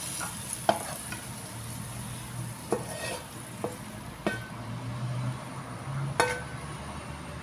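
Wooden spatula scraping and knocking against a nonstick wok as stir-fried egg tofu is pushed out onto a plate, over a steady sizzle from the hot pan. About six sharp knocks, the loudest a little after six seconds in.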